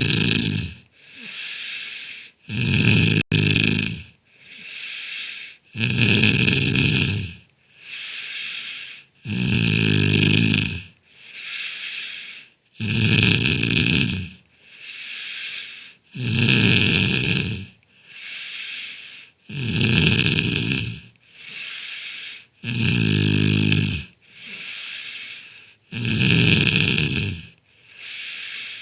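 A person snoring in a steady rhythm. A loud, low snore comes about every three and a half seconds, and a softer, breathier snore falls between each pair.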